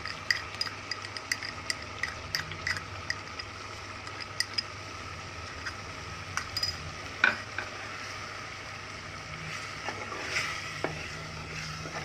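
Chicken korma sizzling in an aluminium pot on a gas stove while a wooden spoon scrapes in fresh cream and stirs, with many small taps and clicks of the spoon against the pot and bowl. There is a sharper knock about seven seconds in.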